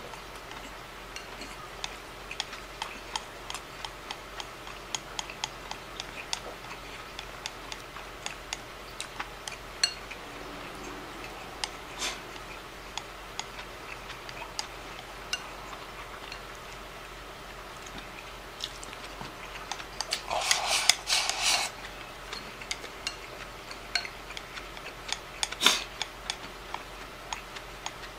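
Wooden chopsticks clicking and scraping against a ceramic rice bowl while eating, a steady scatter of small sharp clicks. About two-thirds of the way in comes a louder noisy scrape lasting a second or so, followed by one sharp clack.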